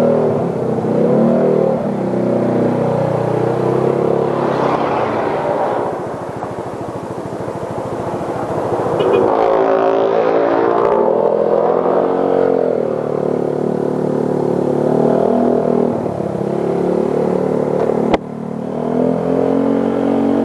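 Motorcycle engine running while riding, its pitch rising and falling with the throttle. A single sharp click near the end.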